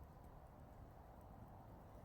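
Near silence: faint steady low background noise with a few tiny ticks of a campfire crackling.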